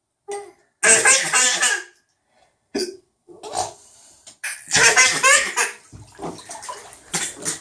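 Silly vocal noises: a string of spluttering, breathy bursts with short pitched squeaks between them, several times over with brief pauses.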